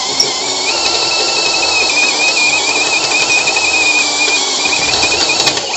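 Electric drill with an 18 mm cutter boring through a steel boiler flue pipe, running steadily: a loud high whine over the scrape of cutting metal.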